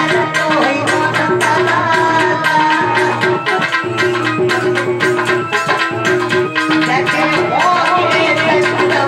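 Devotional Hindi Krishna bhajan music with a quick, steady hand-drum beat under a melody line.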